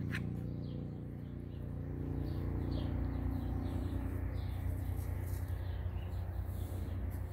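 A steady low mechanical hum, with short high bird chirps repeating through it.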